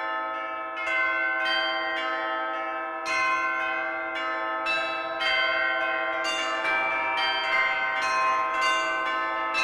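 Several church bells ringing, struck one after another so that their long ringing tones overlap in a continuous peal. The strikes come more often in the second half.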